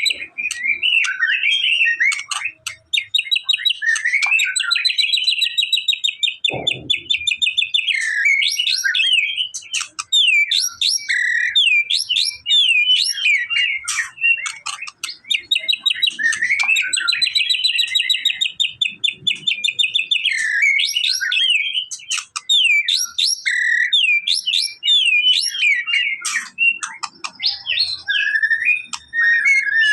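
White-rumped shama singing continuously: loud, varied whistled phrases and fast chattering trills, with one long trilled phrase about four seconds in that recurs about twelve seconds later. A single low thump about six and a half seconds in.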